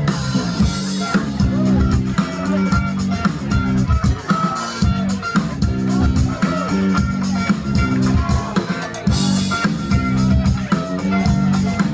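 Funk band playing live: electric guitar and drum kit in a passage with no singing, under a moving low line. Cymbal crashes come near the start, about halfway and again near the end.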